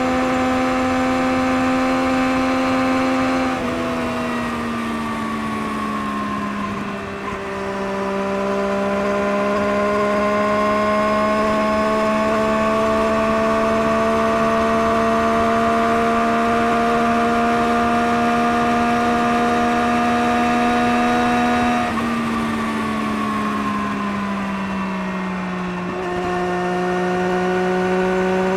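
Engine running through a Scorpion aftermarket exhaust, held at steady high revs with a continuous exhaust drone. The pitch drops twice, about four seconds in and again past twenty seconds, and creeps back up slowly after each drop.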